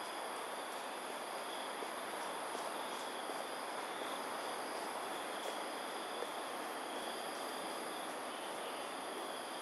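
Outdoor ambience at dusk: insects chirring steadily in several continuous high tones over an even rushing noise.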